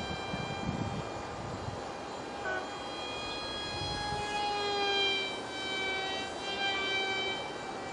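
Ultra micro RC foam jet's 8 mm electric motor with direct-drive prop, heard as a steady high whine overhead whose pitch shifts up and down in the second half as it flies past.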